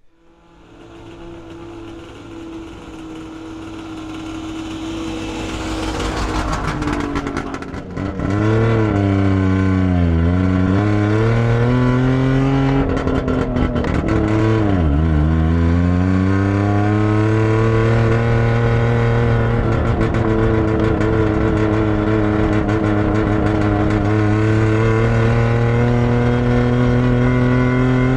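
Barkas B1000's three-cylinder two-stroke engine heard from inside the cab as the van drives off. The sound builds over the first several seconds, the revs fall and climb back twice, and from about halfway through the engine runs at a steady speed.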